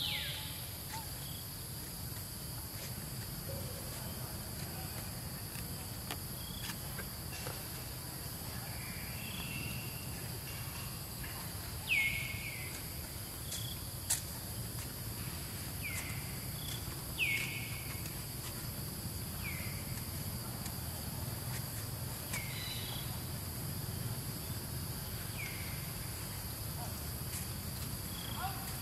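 Steady high drone of insects, with short high squeaks that fall in pitch every few seconds and a couple of sharp clicks.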